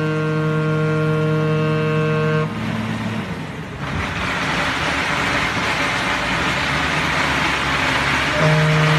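A ship's horn sounds with several steady tones at once, cutting off about two and a half seconds in. A steady rushing noise follows, and the horn sounds again near the end.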